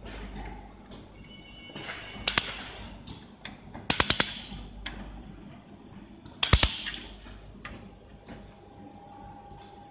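Handheld fiber laser welder firing on stainless steel sheet in three short bursts, about two seconds in, at four seconds and at six and a half seconds. Each burst is a quick cluster of sharp crackling pops with a hiss that fades away.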